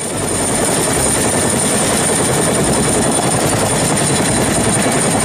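Helicopter flying low and close: a steady rapid beat of rotor blades over dense noise, with a steady high whine. It swells in over the first half second.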